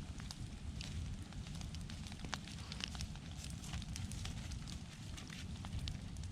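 Bonfire of pine logs burning, crackling with frequent sharp pops over a low steady rumble.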